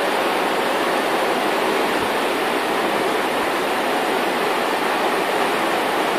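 Steady, even rushing noise with no voice or melody in it.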